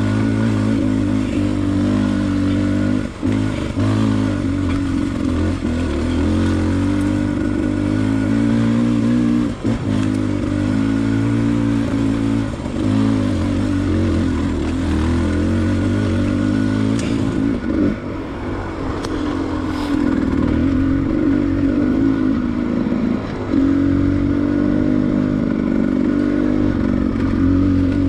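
2022 Beta 300 RR two-stroke enduro motorcycle running under load while being ridden on a trail, its engine note dipping briefly a few times as the throttle comes off, with occasional knocks.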